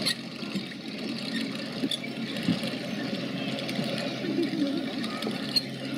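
Steady low engine hum, with the voices of a crowd talking.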